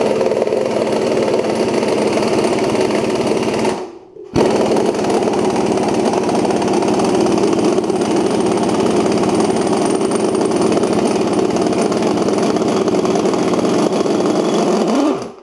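Pneumatic impact wrench hammering steadily as it unwinds the threaded rod of a coil-spring compressor, letting a compressed suspension coil spring expand. It stops briefly about four seconds in, then runs on until near the end.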